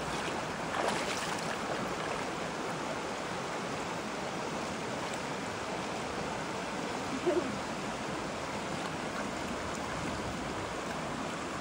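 Steady rushing of a mountain stream, with a brief short sound standing out about seven seconds in.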